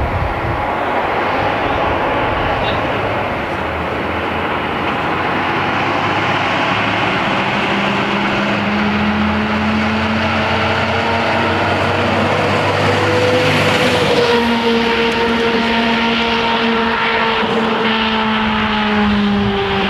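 Emergency vehicle driving through city traffic: a steady engine drone over road noise, slowly falling in pitch in the second half as it passes.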